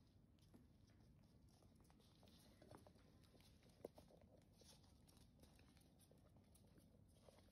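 Near silence, with faint, scattered taps of small dogs' paws and claws on a wooden floor as puppies play. One sharper tap comes about four seconds in.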